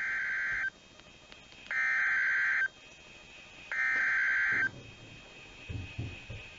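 NOAA Weather Radio Emergency Alert System SAME header: three data bursts of about a second each, a second apart, a harsh two-tone digital warble that marks the start of an encoded alert, here a severe thunderstorm warning. Fainter low sounds follow near the end.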